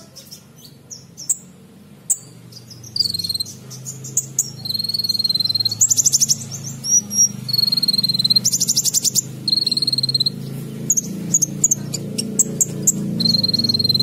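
Caged male Van Hasselt's sunbird (kolibri ninja) singing a song filled with learned imitations of other birds: bursts of high, rapid trills and sharp chirps, some phrases held as a thin, even trill. A low steady hum runs underneath, growing louder in the second half.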